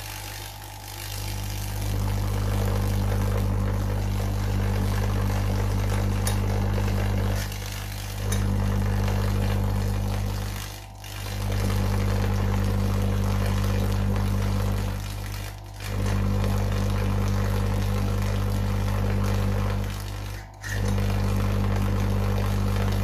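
Homemade vacuum tube Tesla coil running, its plasma flame giving a loud, deep mains buzz over a hiss; the supply is a microwave-oven-transformer voltage doubler. The sound starts about a second in and drops out briefly four times.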